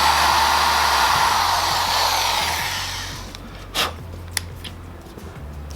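Power drill running, then slowing and fading out over about three seconds, followed by a single knock.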